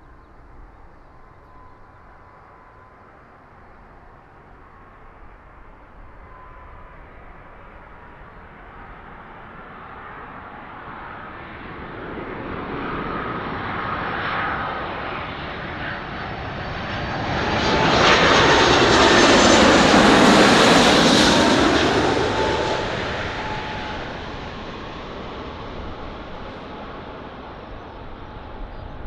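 Jet airliner passing by. Its engine noise builds slowly from faint to loudest about two-thirds of the way through, with a thin whine over the rush, then fades away.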